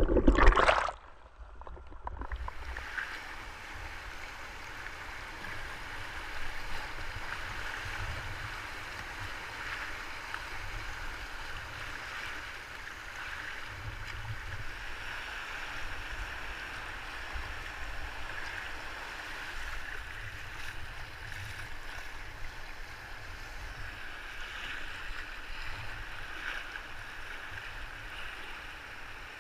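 Loud muffled water noise for about the first second while the kayak-mounted camera is underwater, then, once it surfaces, the steady rushing of river rapids around the kayak.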